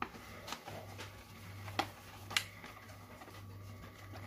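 A glass cup scooping flour out of a paper flour bag into a plastic basin: a few light knocks and taps, spaced apart, over a low steady hum.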